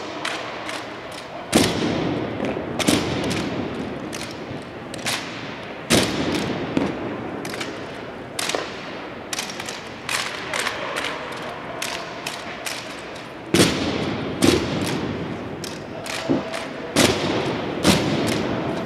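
M1903 Springfield drill rifles being handled by a drill team: hands slapping the stocks and rifle butts striking the floor make many sharp clacks and thuds at irregular intervals, a few much louder than the rest, each echoing through a large hall.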